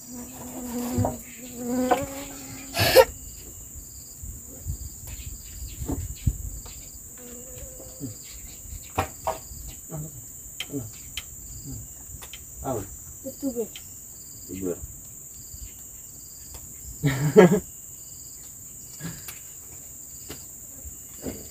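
Steady high-pitched buzz of insects, with a second insect chirping in short regular pulses, under scattered light knocks and a few brief voice sounds.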